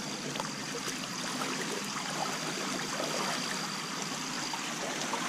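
Shallow creek water running and trickling steadily over rocks and gravel.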